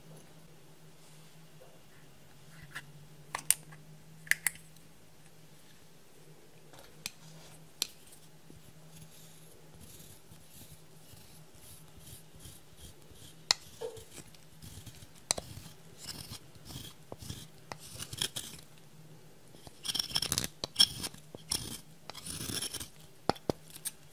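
Slime being handled by hand: a few sharp clicks at first, then from about halfway a denser run of crackling, sticky clicks and pops as it is pressed and pulled.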